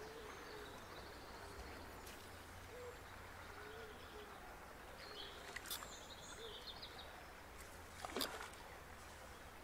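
Quiet riverside background with birds calling, low cooing notes and a few higher whistles, and about eight seconds in a brief splash at the water as a small wild trout takes the dry fly and is struck.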